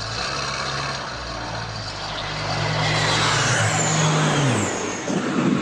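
Aircraft engine noise, growing louder and then cutting away about four and a half seconds in, with a faint falling high whine near its loudest point.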